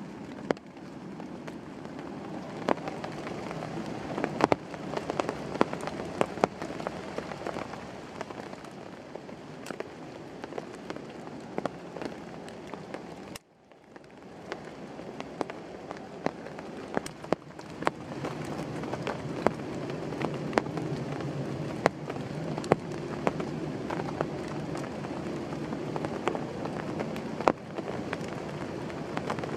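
Rain falling steadily, with frequent sharp drops striking close by. The sound cuts out for a moment about halfway through, then comes back.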